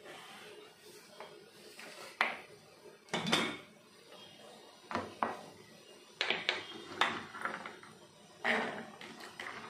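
Scattered knocks and clatters of kitchenware being picked up and put down on a countertop, including an aluminium pressure cooker being set down.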